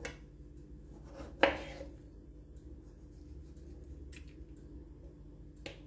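Kitchen knife cutting peeled tomatoes on a wooden cutting board: a few short knocks of the blade on the board, the loudest about a second and a half in, over a low background.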